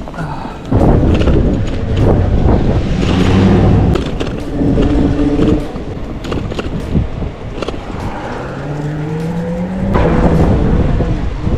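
Wind buffeting the microphone and road rumble while riding a Propella 7S electric bike, with scattered rattles and knocks. A whine rises in pitch from about eight seconds in, then holds steady, as the hub motor picks up speed.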